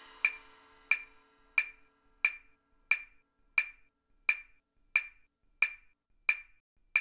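Steady, evenly spaced wooden clicks, about three every two seconds, like a metronome or a wood block keeping time, as the tail of band music fades out at the start.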